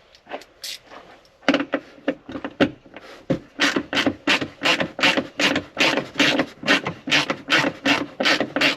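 Small hand ratchet driving a T40 Torx bit, clicking in quick, even strokes of about three a second after a few scattered clicks: a Freedom Top lock bolt being ratcheted tight.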